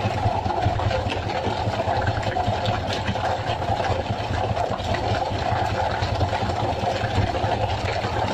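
Fishing boat's engine running steadily at an even drone, with a few faint knocks on top.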